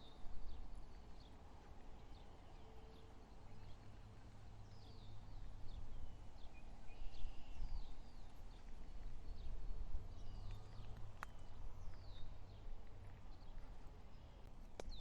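Small birds calling: short, quick downward-slurred chirps scattered irregularly over a low outdoor rumble.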